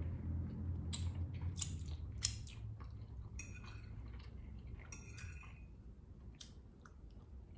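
Metal fork clinking and scraping against a ceramic bowl as it scoops pasta, a scattering of single sharp clinks, some ringing briefly, together with close-up chewing.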